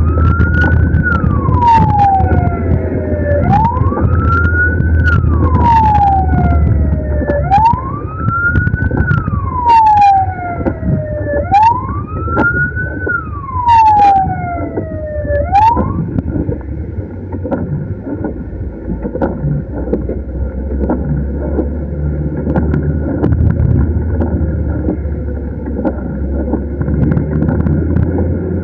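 Ambulance siren in wail mode, rising and falling about once every four seconds, four times, then cutting off about two-thirds of the way through. Vehicle engine and road noise run underneath.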